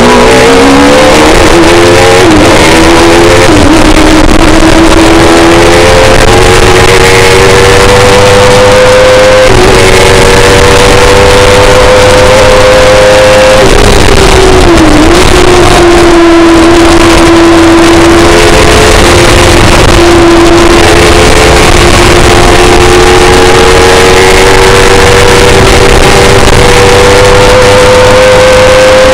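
Kawasaki ZX-10R inline-four motorcycle engine driving a sports racer at full throttle. The revs climb, stepping down at quick upshifts in the first few seconds, then hold high. About halfway the pitch drops and dips as the driver brakes and changes down, then the revs build again toward the end.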